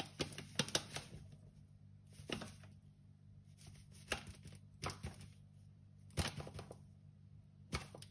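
Brown paper flour bag crinkling in short, scattered crackles as rye flour is shaken out of it into a glass jar.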